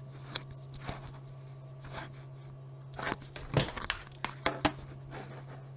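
Handling noise from a camera being grabbed and moved: scattered knocks, clicks and rustles, thickest and loudest about halfway through, over a steady low electrical hum.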